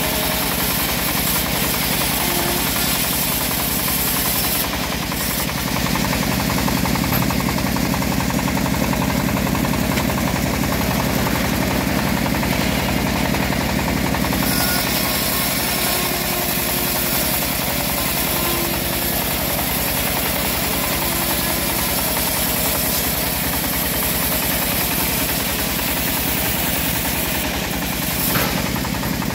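Homemade band sawmill running steadily, its blade sawing lengthwise through a teak log.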